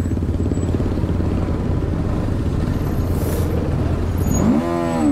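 Motorcycle engines running at low speed in a slow-moving pack, a steady low rumble. Near the end, one engine is revved up and back down.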